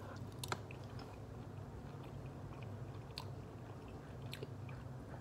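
A man chewing a mouthful of beef steak, with a few faint mouth clicks. A steady low hum runs underneath.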